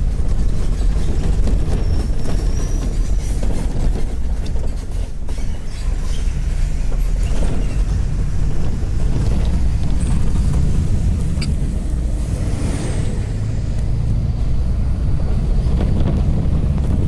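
Steady low road rumble of a moving bus, heard from inside.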